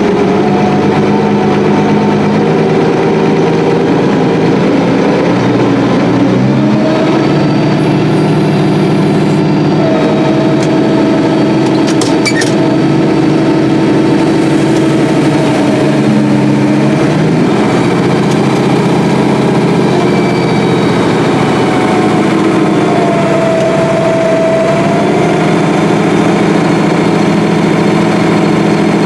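Combine harvester running steadily while harvesting soybeans, its engine and machinery droning loudly with a few shifts in pitch and a short sharp click about twelve seconds in.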